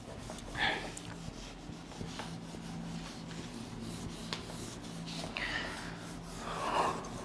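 Board duster rubbing across a whiteboard, erasing it in faint, soft strokes, with a low steady hum underneath.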